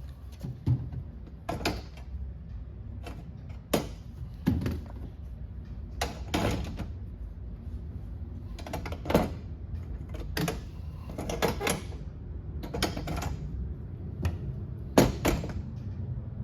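Cordless drills being set down one after another on a tool storage shelf: about a dozen irregular knocks and clunks of the tool bodies against the shelf.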